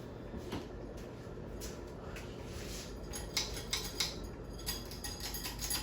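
Steady low hum of a 52-inch Hunter Mayfair ceiling fan running, with a scatter of light clicks and ticks from about three seconds in.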